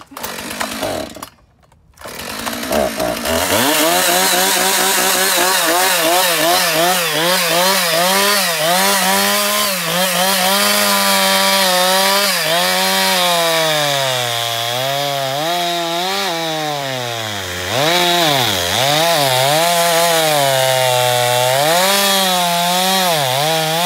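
Old Husqvarna two-stroke chainsaw running at high revs while sawing into a big tree trunk, its pitch repeatedly dipping and recovering as it bogs in the cut. The chain is dull, so the saw labours through the wood. The engine comes up to full speed about three seconds in.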